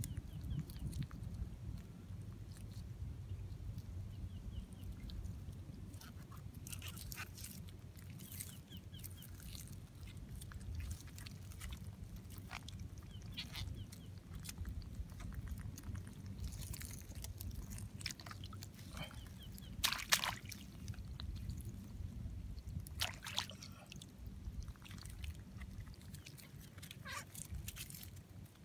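Scattered short clicks and crackles of a mud crab being handled and bound with a strand of grass, over a steady low rumble. The sharpest click comes about two-thirds of the way through.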